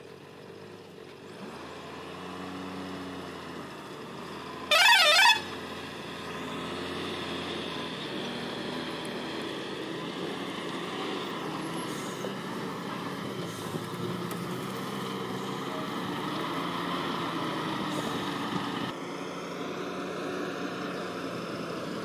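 Borewell drilling rig truck's diesel engine running as it drives up a dirt track, growing louder as it approaches. About five seconds in, its horn gives one short, loud warbling blast.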